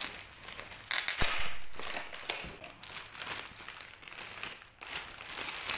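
Parcel wrapping being pulled off and crumpled by hand: irregular crinkling and crackling, loudest about a second in.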